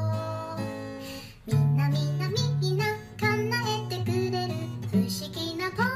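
Background music: a song with acoustic guitar and a singing voice.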